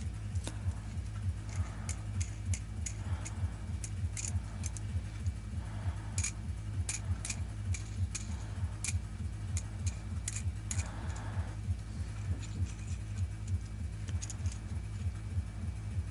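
Small steel nuts and bolts clicking and clinking against each other as they are handled, many short sharp clicks in loose clusters, over a steady low hum.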